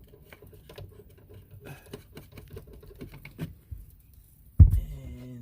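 Light clicks, taps and scraping of hands fitting screws into a car taillight housing, with one sharp thump near the end.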